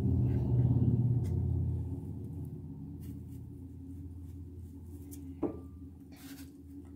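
Knife cutting chunks off a peeled honeydew melon over a ceramic bowl, with a few short clicks as the knife and pieces touch the bowl, the sharpest near the end. A low hum, loudest at the start, fades away over the first few seconds.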